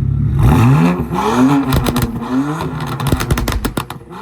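BMW N54 3.0-litre inline-six in a tuned 335i (stage 2, downpipes) revved from idle about half a second in, then popping and crackling sharply on the overrun as the revs fall and are blipped again: the burbles of a pop tune.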